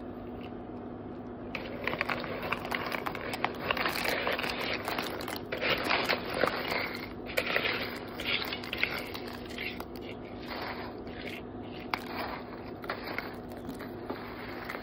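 Marie biscuits being snapped and broken up by hand, a dense run of crunching and crackling with sharp snaps that starts about a second and a half in and thins out near the end, over a steady low hum.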